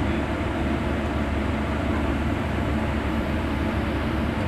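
Heavy-machinery diesel engine running steadily at an even pace, a low drone with no changes.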